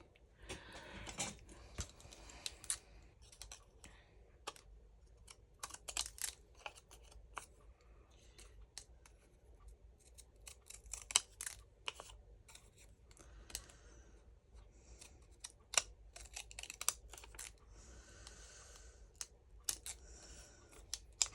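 Scissors snipping through paper in many short, irregular cuts, with light paper rustling between them as printed labels and tags are cut out.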